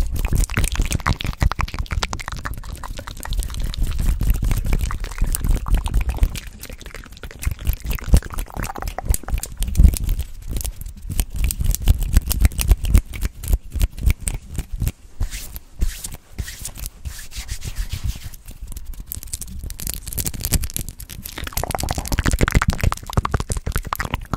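Close-miked ASMR mouth sounds: rapid wet clicks and smacks made right at the microphone, mixed with fast hand movements around it. They thin out for a few seconds in the middle and come back denser near the end.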